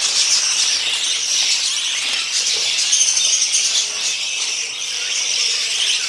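A flock of budgerigars chattering and chirping without a break, a dense high twittering.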